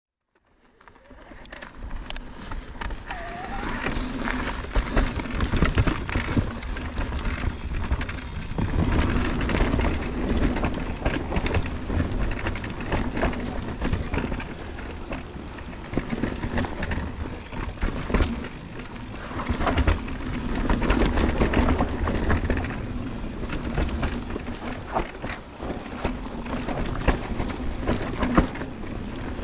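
Mountain bike descending a dirt forest trail, heard from a chest-mounted action camera: tyres rolling on dirt, the bike rattling and knocking over bumps, with a low rumble throughout. It fades in over the first two seconds.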